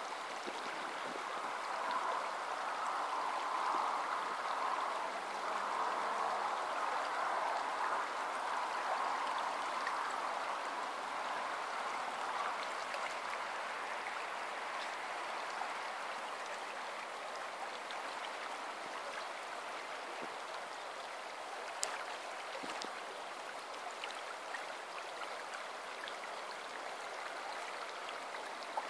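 River water running over a shallow riffle, a steady rushing burble that eases slightly after the first third. A single sharp click comes about two-thirds of the way through.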